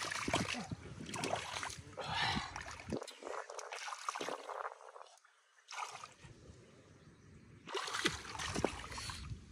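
Irregular splashing and sloshing of water stirred by hands, with a quieter pause in the middle.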